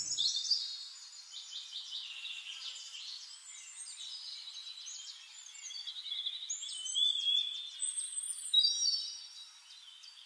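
Small birds chirping and twittering in a busy run of quick, high notes, many of them sliding down in pitch. The chirping is loudest about seven seconds in and again around eight and a half seconds.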